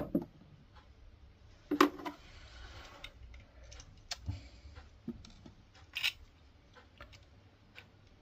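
Small model-locomotive parts being handled on a workbench: irregular sharp clicks and taps as the metal weight and plastic body pieces are picked up, tried and set down, with a short rustle about two seconds in.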